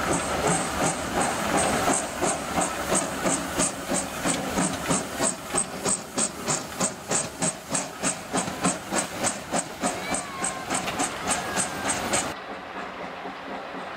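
FS Class 740 steam locomotive working slowly, puffs of steam hissing from its cylinders in an even beat of about three a second. Near the end the sound drops abruptly to a quieter hiss.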